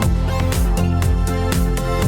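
80s-style synthwave music: a steady electronic drum beat over a synth bassline and synthesizer chords.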